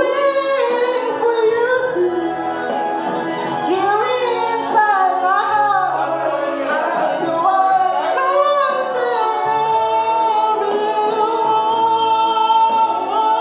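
A man singing a slow love ballad into a handheld microphone over backing music, in a high, strained register with wide pitch swoops. About nine seconds in he holds one long high note until near the end.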